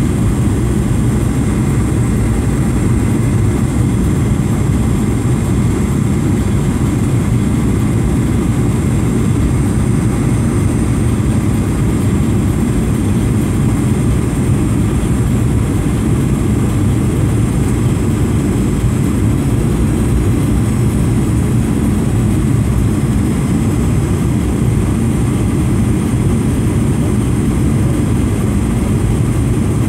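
Steady engine and airflow noise inside an airliner cabin during descent, a deep even rush with a faint high whine above it.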